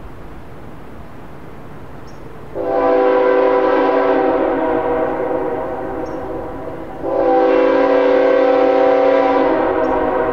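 Diesel freight locomotive's air horn sounding two long blasts, a chord of several tones; the first starts about two and a half seconds in and fades, the second follows about four seconds later and carries on to the end.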